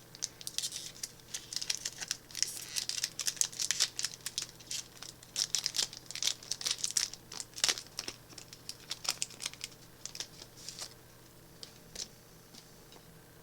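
Magic: The Gathering booster pack wrapper crinkling and tearing as it is opened and the cards are handled. A dense crackle that dies down about eleven seconds in.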